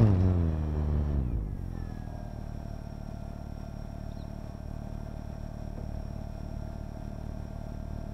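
Quadcopter's electric motors and propellers spinning down after landing, the pitch falling over about a second and a half, then a steady quieter hum with a faint high whine. Heard through the quadcopter's own onboard camera.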